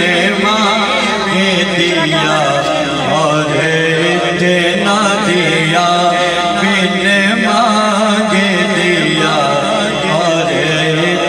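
A man singing a naat, an Urdu devotional poem, solo into a microphone in a long drawn-out passage whose pitch wavers and curls through ornaments, over a steady low drone.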